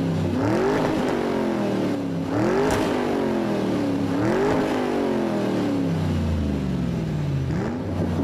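A car engine revving again and again. Each rev climbs quickly and then slides down slowly, about every two seconds, with no pause between them.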